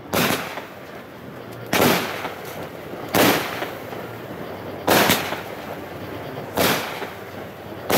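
200-gram consumer firework cake firing shot after shot: six sharp, hard-hitting bangs about one and a half seconds apart, each trailing off in a rolling echo.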